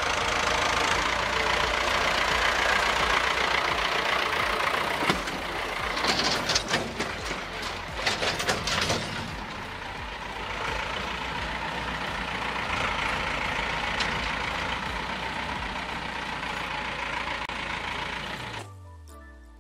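Farm tractor engine running steadily as the tractor drives off, with a burst of clattering about six to nine seconds in. The engine sound cuts off near the end.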